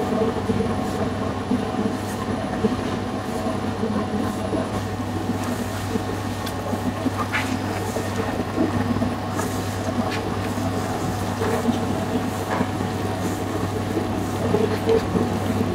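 Commercial dough-kneading machine running steadily, its motor humming as the hook churns a large batch of bread dough in the steel bowl, with a few light clicks.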